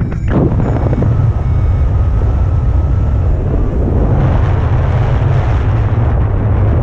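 Wind rushing over the camera's microphone in paragliding flight: a steady low rumble of airflow noise.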